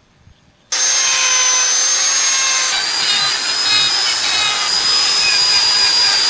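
High-speed rotary carving tool with a burr bit grinding into wood: a loud, steady high-pitched whine that starts suddenly under a second in and drops slightly in pitch a couple of seconds later.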